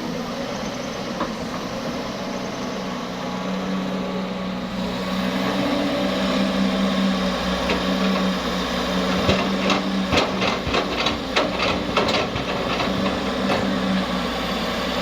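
Heavy-equipment diesel engine running steadily, getting louder about a third of the way in. In the second half it is joined by a run of sharp knocks and clatters, about three a second for several seconds.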